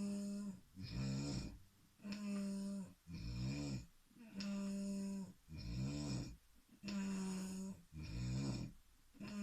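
Snoring in a regular back-and-forth pattern: a snore held on one steady low pitch alternates with a rougher snore whose pitch wavers, each lasting under a second, with short pauses between.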